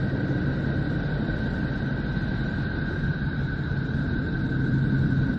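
The 'sound of Neptune', a space-recording sonification: a steady rumbling drone with a hiss, with a low hum and two higher tones held unchanged throughout.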